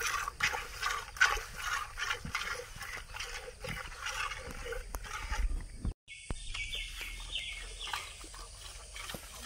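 Milk squirting by hand from a cow's teats into a plastic bucket, in rhythmic strokes a little over two a second. The sound breaks off for a moment about six seconds in, then goes on more softly.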